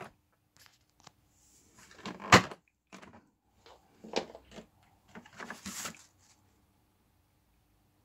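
Plastic clicks and knocks from a Numatic WV370 vacuum cleaner being taken apart by hand with the motor off. The head's side clip clicks open, and a sharp knock comes about two seconds in as the motor head comes off. Around five to six seconds in there is rattling and a rustle of cloth as the filter is handled.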